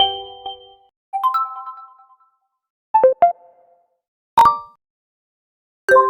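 Realme X smartphone's built-in alert tones played one after another, with silence between: a short rising chime about a second in, three quick blips around the middle, a single sharp ping, and another chime starting near the end.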